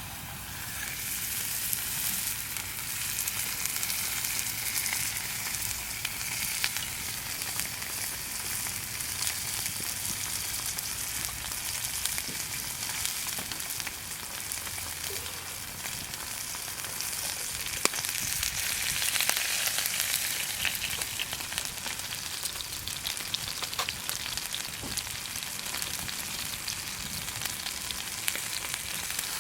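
Beef steak sizzling in hot fat as it cooks over a campfire: a steady, dense sizzle with fine crackles and the odd sharper pop.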